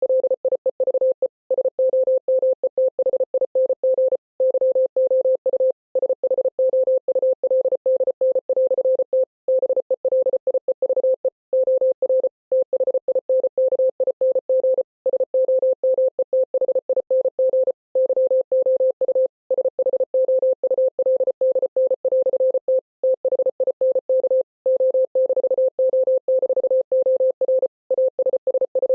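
Morse code beeping: one steady mid-pitched tone keyed on and off rapidly in dots and dashes, with brief pauses between groups.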